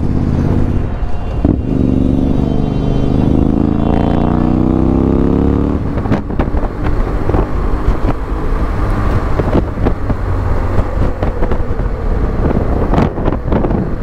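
Motorcycle engine accelerating, its pitch rising steadily for several seconds, then breaking off abruptly about six seconds in. A rough rush of wind and road noise with scattered knocks follows.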